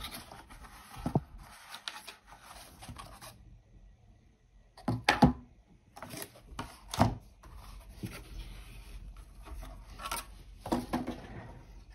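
A cardboard box and its cardboard insert being handled as a circuit board is lifted out: rubbing and scraping for the first few seconds, then a few sharp knocks and taps as the cardboard and board are moved and set down.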